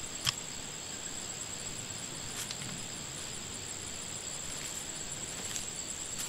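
Steady high-pitched trilling of crickets. One sharp click sounds about a third of a second in, and a few fainter ticks follow as boots walk through the grass.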